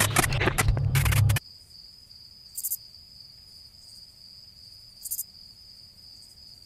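Hurried footsteps and rustling through long grass with knocks from a handheld camera, cutting off abruptly after about a second and a half. Then a steady high trill of crickets follows, with two brief higher chirps.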